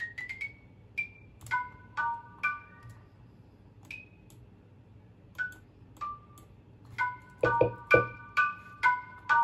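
A bell-like sampled instrument plays single notes of a melody. From about seven seconds in it plays repeated three-note chords, roughly two a second, with a couple of low thumps under the first chords.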